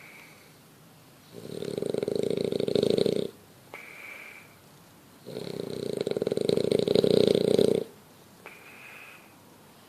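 French bulldog snoring: two long, buzzing snores of about two seconds each. A faint high whistle sounds in the quieter breaths between them.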